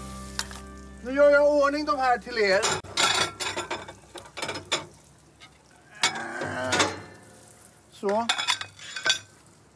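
Pans and metal utensils clattering and clicking at a grill, with a pan of spinach sizzling. A loud, wavering, voice-like call comes about a second in, and a held music chord fades out at the very start.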